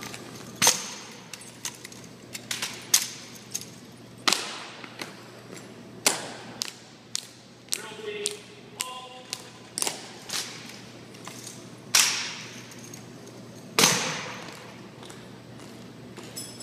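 Sharp slaps and knocks of drill rifles being handled and struck, mixed with the footsteps of a marching drill team on a hard floor, each crack echoing in a large hall.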